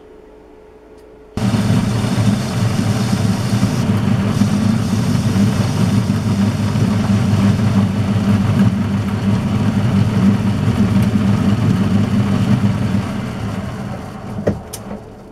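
Metal lathe switched on about a second and a half in and running steadily, its chuck spinning while the centre held in it is skimmed true with a cutting tool; near the end it slows and dies away, with a click.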